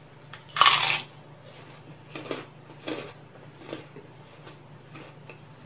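A person biting into a crunchy kerupuk (Indonesian fried cracker): one loud crunch about half a second in, then several softer chewing crunches, fading.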